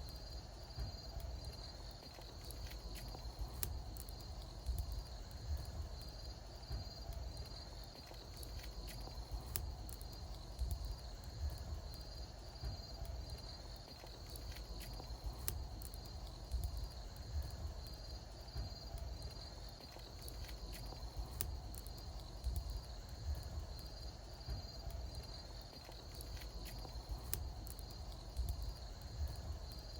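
Wood bonfire crackling, with scattered sharp pops, over a steady pulsing trill of crickets and a low uneven rumble.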